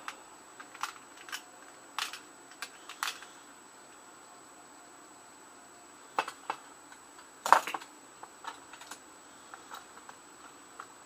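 Metal hand tools and sockets clinking and clattering as they are rummaged through, in scattered sharp clicks with the loudest clatter about seven and a half seconds in.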